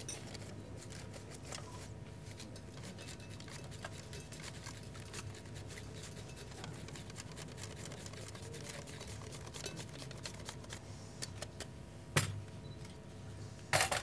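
Steady low room hum with scattered small clicks, and two louder sharp knocks near the end.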